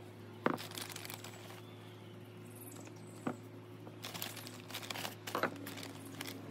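Hands rustling and crinkling petunia plants and potting soil while planting them in a pot, with a sharp tap about half a second in and another a few seconds later.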